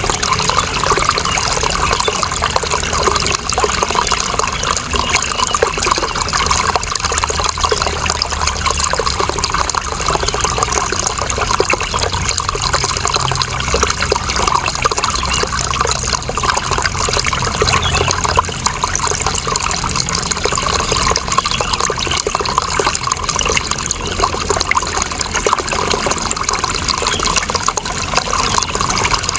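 Running water in a steady, unbroken trickling flow.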